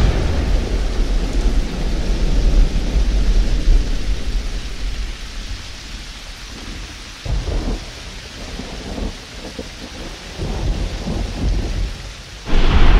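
Thunderstorm: steady rain with rumbling thunder. A heavy rumble dies away over the first few seconds, quieter rumbles come midway, and a new loud clap of thunder breaks near the end.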